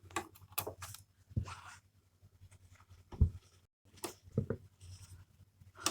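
Irregular clicks, knocks and brief rustling from handling a domestic sewing machine with a ruffler foot and the fabric being gathered, over a low hum, with one louder knock about halfway through.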